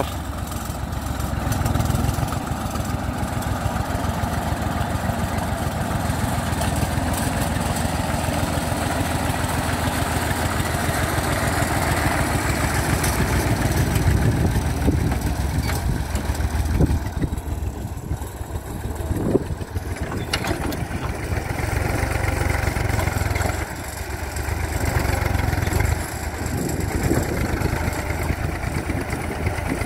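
IMT 558 tractor's diesel engine running steadily, working a three-bottom plough through dry soil, its sound dipping and returning a few times in the second half.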